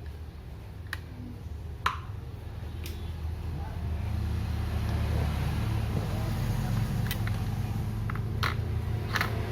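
Steady blowing of a hot air rework station's fan, getting louder about four seconds in, with a few sharp clicks of tools against the circuit board.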